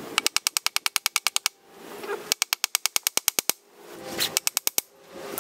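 Rapid metal-on-metal hammering on a punch set against a seized bolt in an outboard motor's mounting bracket, in three quick bursts of about ten sharp strikes a second, the last burst shortest. The blows are meant to drive out the bolt, which is seized in place even after being drilled out and heated with a torch.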